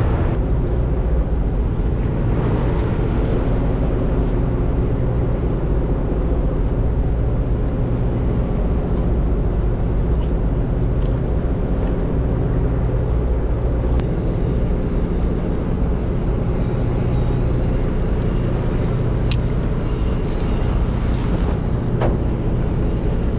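Steady low drone of a fishing boat's engine running at a constant speed, with a few faint clicks.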